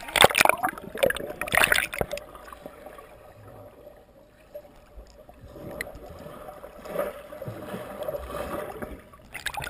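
A loud splash and churning water as a person plunges into lake water, lasting about two seconds. Then the sound is heard from underwater: muffled, quiet bubbling and dull churning.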